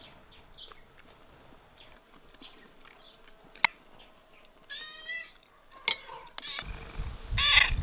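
A cat meowing twice, a short meow in the middle and a louder one near the end, with a low rumble under the second. Between them come two sharp clinks of a metal spoon against a ceramic soup bowl.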